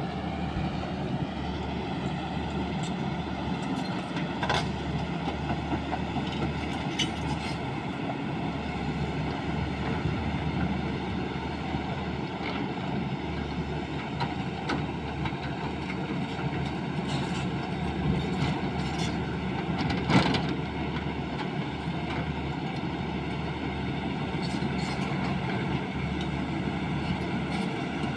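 Sany excavator's diesel engine running steadily under work, with occasional clanks; the loudest is a single clank about twenty seconds in.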